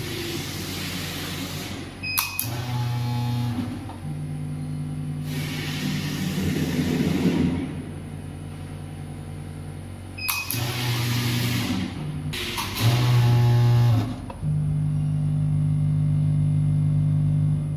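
Small granule packing machine for sugar or salt running through its cycles: a steady motor hum, a hissing rush lasting about two seconds every five seconds or so, and a few sharp clicks.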